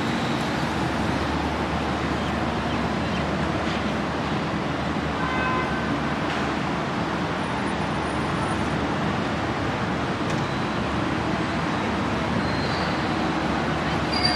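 Steady city road traffic: cars passing on a busy street, an even continuous noise with a low rumble and no single event standing out.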